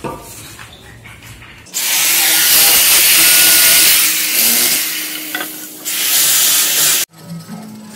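Power tool working wood, running loud and steady: it starts abruptly about two seconds in, eases off around the middle, picks up again, and cuts off suddenly about seven seconds in.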